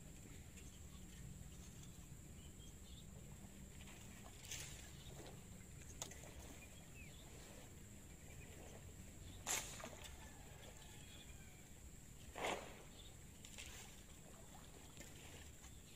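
Faint outdoor ambience: a steady low rumble and a thin, steady high-pitched whine, with a few short sharp sounds, the loudest about halfway through and again about three-quarters in.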